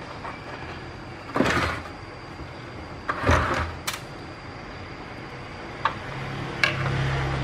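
Plastic parts of an induction cooker being handled and fitted together: two brief scraping rustles, a knock and a few sharp clicks. A low steady hum starts near the end.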